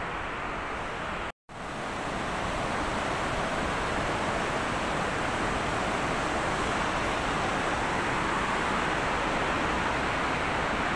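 Steady rushing of a mountain river's whitewater over rocks, cutting out briefly about a second and a half in.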